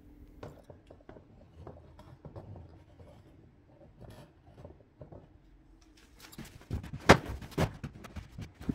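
Things being handled and moved about in a small room while it is cleared out: faint scrapes, rubbing and light knocks, then a few loud, sharp knocks in the last couple of seconds.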